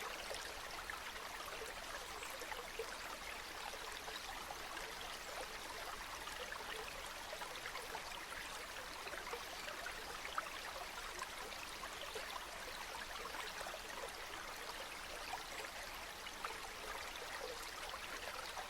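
A small stream running over stones: a steady babble of water with many small splashes and gurgles.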